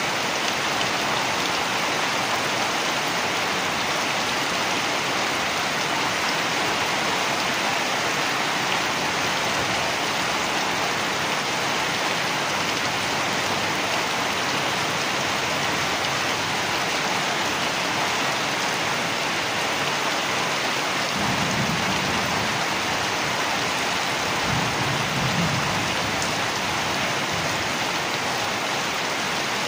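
Heavy rain falling steadily on banana leaves and a rice field, an even hiss, with two low rumbles of thunder about three-quarters of the way through.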